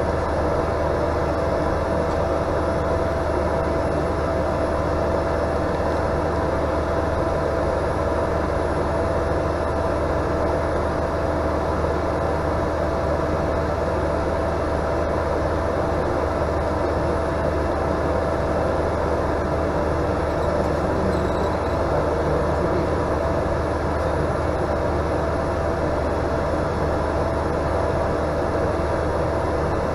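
Cessna 208 Caravan's Pratt & Whitney PT6A turboprop engine and propeller running steadily at low power as the aircraft rolls on the ground: an even drone with a constant whine and a low hum beneath it.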